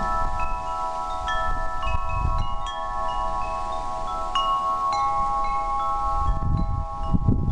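Wind chimes tinkling: notes at several pitches strike at irregular times and each rings on for seconds. Under them is a low wind rumble that swells about two seconds in and again near the end.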